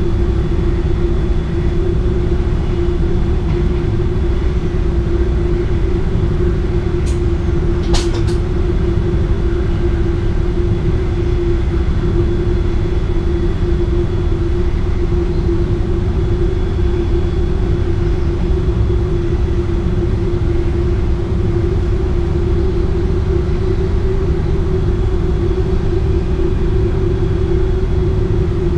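Driver's-cab noise of an NS DDZ electric double-deck train under way: a steady low rumble with a constant hum. Two short sharp clicks come about seven and eight seconds in.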